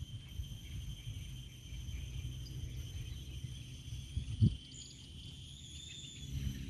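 Insects chirring steadily in high, unbroken tones over an uneven low rumble of wind on the microphone. A short low sound stands out about four and a half seconds in.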